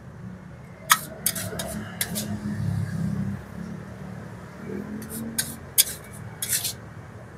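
Metal spatula and spoon clinking and scraping against a metal wok and serving plates as noodles are scooped out: a few sharp clinks in the first two seconds, then another group around five to seven seconds in, over a steady low rumble.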